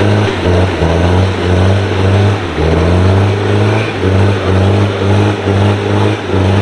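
Background music with a low bass line that steps between notes every second or so.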